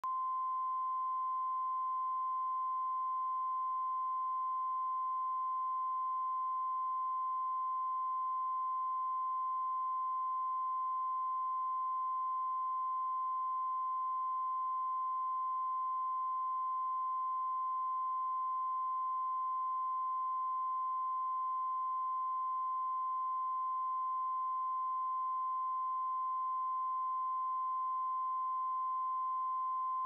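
Broadcast line-up tone: a steady, unbroken 1 kHz pure reference tone played with colour bars, a test signal for setting audio levels at the head of a programme tape.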